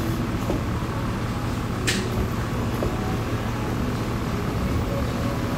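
Steady hum of factory machinery and ventilation, with a single sharp click about two seconds in.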